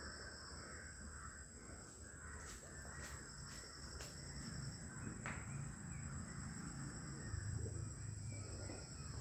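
Lit fuses of two country firecrackers (nattu vedi) hissing and spitting sparks before they go off, with a few faint crackles about two to four seconds in. Birds call and a steady high insect drone runs underneath.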